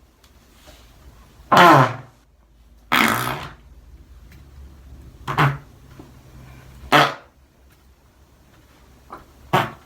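A series of fart sound effects: about six short separate farts at irregular gaps of a second or two, the first two the longest, one near the end faint.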